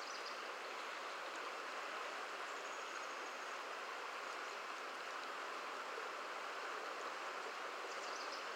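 Creek water running over a shallow bed, a steady even rushing with no change.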